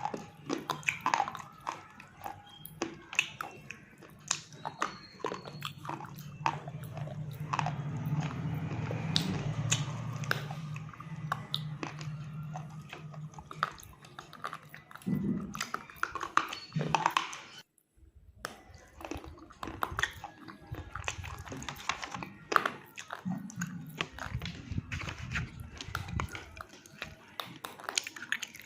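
Close-miked biting and chewing of a dry, chalky eating material, a run of sharp, irregular crunches with a short break about two-thirds of the way through.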